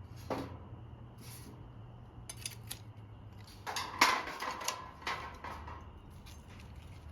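Metal camping gear being handled, clinking and clattering in a string of separate knocks, with the loudest clatter about four seconds in.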